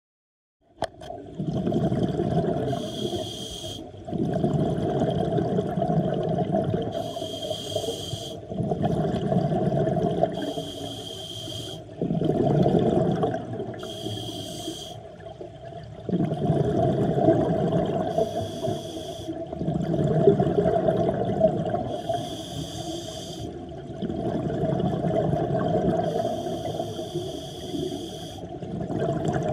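Scuba diver breathing through a regulator underwater, starting about a second in: a short hiss on each inhalation, then a longer bubbling rumble as the exhaled air escapes, about seven breaths at a slow, even pace. A steady low hum runs underneath.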